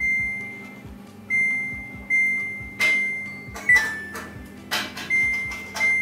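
Samsung WW90K5410UX washing machine's control panel beeping as its buttons are pressed over and over: about seven short, high, single-tone beeps, each fading quickly, one near the middle stepping down in pitch. A few sharp clicks come between the beeps.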